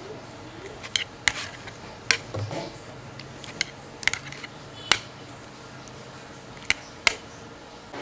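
A series of sharp, separate clicks and clinks of hard objects, about eight spread irregularly over several seconds, over a faint steady background.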